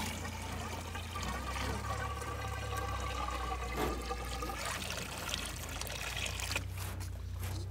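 Water pouring in a thin stream from a jug into a plastic jerrycan, a steady trickle with a ringing note from the filling container for the first few seconds. The stream fades near the end.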